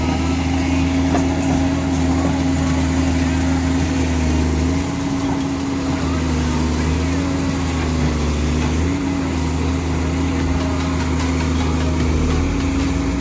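Komatsu hydraulic excavator's diesel engine running steadily, its pitch dipping slightly and recovering a couple of times in the middle.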